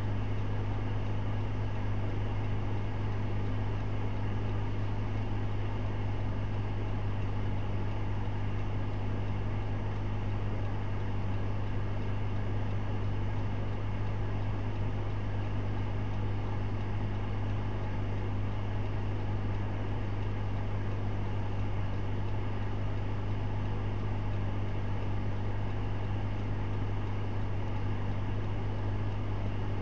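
Steady low hum of a stationary minivan idling, heard inside its cabin, unchanging throughout.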